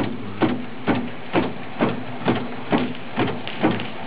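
Hand-operated four-wheel fire pump being worked by its handle bars, giving a sharp knock on each stroke, a little more than two a second, over a steady hiss.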